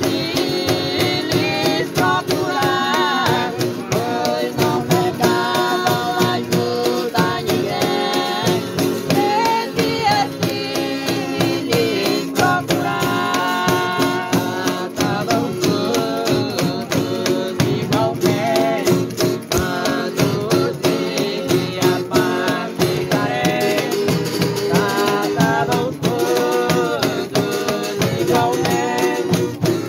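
A folia group's devotional chant: several voices sing together in call-and-response style over strummed acoustic guitars and a tambourine beat that keeps a steady rhythm.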